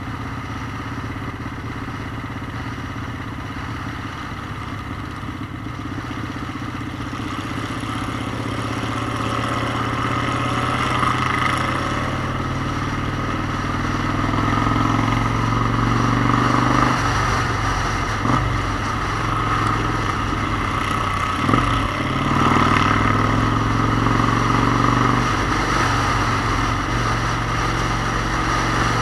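Motorcycle engine running under way, its note steady at first and growing gradually louder. Between about 17 and 23 seconds in, the note breaks and shifts a few times, as on throttle changes or gear shifts.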